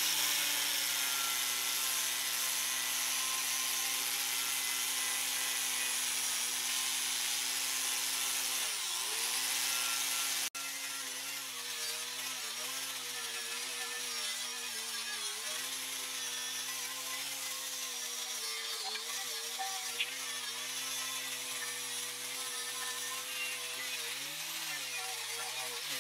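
Angle grinder running with a paint-removal disc, grinding rust and old paint off steel. The motor's whine is steady but sags briefly in pitch whenever the disc is pressed harder into the metal, most deeply about nine seconds in and again near the end.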